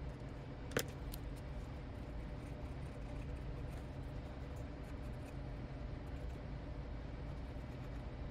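Felt-tip pen scratching faintly on notebook paper over a steady low room hum, with one sharp click about a second in.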